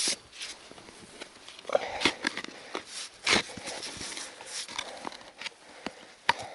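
Shovel digging in snowy ground: an uneven string of scrapes and knocks, the sharpest about three seconds in.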